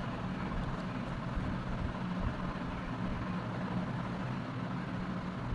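A steady low mechanical hum with even background noise, unchanging throughout.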